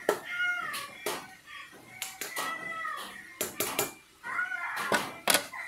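A cat meowing about three times, each call rising and falling in pitch, with sharp clinks of a metal ladle against a steel cooking pot between them.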